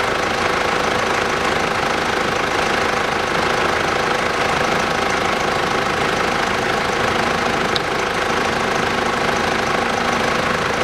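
Mitsubishi Pajero's 3.2-litre diesel engine idling steadily. There is one short click about eight seconds in.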